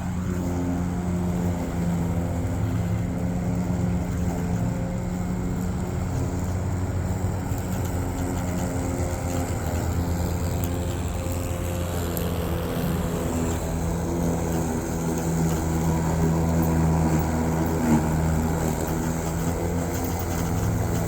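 Yeoman eM400C remote-control electric lawn mower running and cutting grass, its motors giving a steady hum that shifts in pitch a few times as it drives. A single sharp click near the end.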